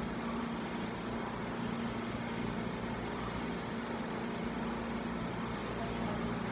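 Steady background hum and hiss of room noise, with a faint steady low tone and no breaks or sudden sounds.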